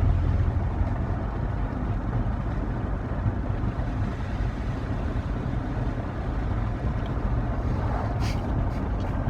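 Steady low rumble of a motor vehicle running, with an even hiss over it and a short click about eight seconds in.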